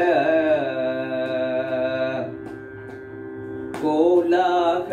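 Male voice singing Carnatic music in raga Hindolam: a long held, ornamented note that ends about two seconds in, over a steady drone. The drone sounds alone for about a second and a half, then the singing starts again near the end.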